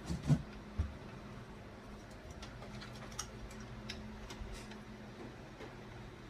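Small handling noises of hands and tools working on computer parts: a few soft knocks in the first second, then scattered light clicks, over a steady low hum.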